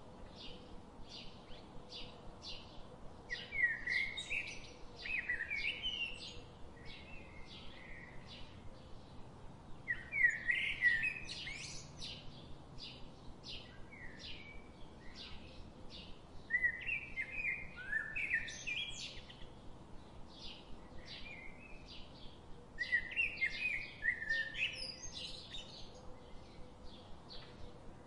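Birdsong: short high chirps repeating about twice a second, with a louder, more varied song phrase breaking in every six or seven seconds.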